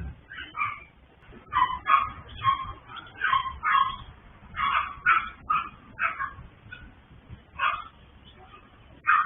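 Small dogs yapping repeatedly, in quick runs of short high barks with brief pauses between runs. This is the needless barking of many small dogs kept together at a breeder's kennel.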